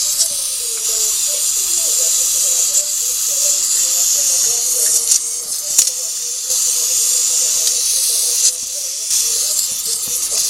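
A loud steady hiss, with faint wavering voices underneath.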